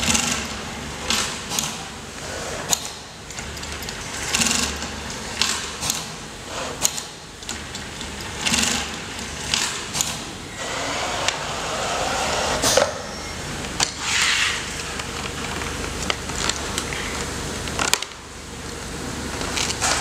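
Automatic template sewing machine stitching velcro onto leather, its motor and needle running steadily, with sharp clicks every second or so.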